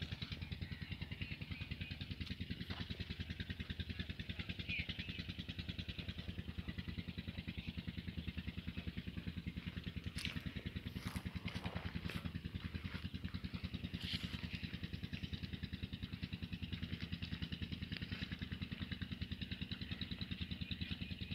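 Belarus 510 tractor's diesel engine idling steadily, an even rapid beat that holds the same pace and level throughout.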